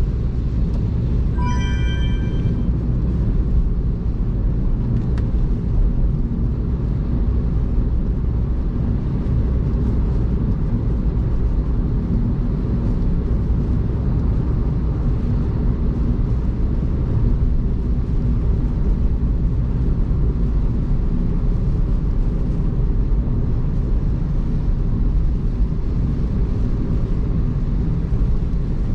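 Steady low rumble of a car driving on the expressway in heavy rain: engine and tyre noise. About a second and a half in, a short electronic chime sounds.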